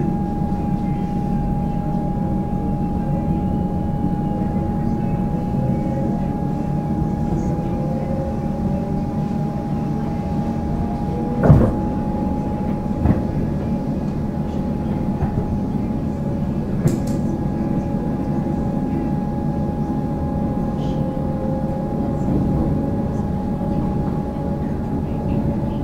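Cabin noise inside a Comeng electric suburban train pulling away and picking up speed: a steady running rumble and hum, with a motor whine that rises in pitch. A sharp clunk comes about halfway through and lighter knocks follow, wheels running over rail joints or points.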